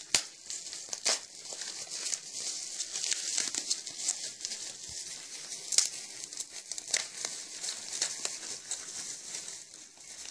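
Packaging crinkling and rustling as it is handled, with many irregular sharp crackles.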